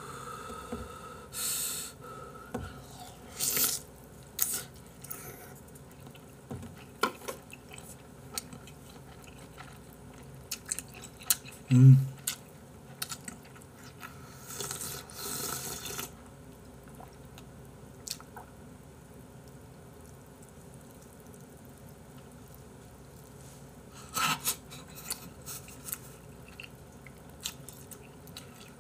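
Close-up eating sounds: chewing fish cake and slurping broth from a fish cake soup bowl held to the mouth, in scattered short bursts with a longer slurp about halfway through. One brief, loud, low vocal grunt stands out in the middle.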